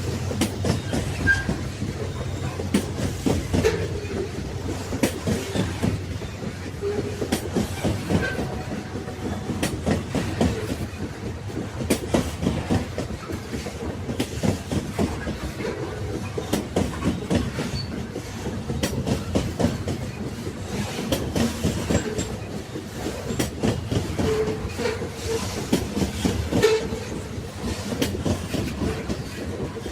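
Railway wagons rolling along the track: a steady low rumble with frequent clicks and knocks as the wheels run over the rails.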